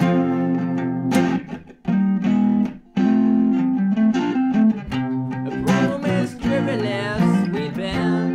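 An acoustic guitar and an electric guitar playing together, chords ringing with a bending lead line over them. The sound briefly drops away twice, about two and three seconds in, between chords.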